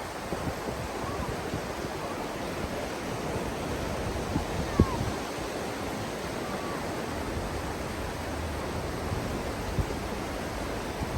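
Sea surf and wind as a steady rush, with one sharp knock about five seconds in.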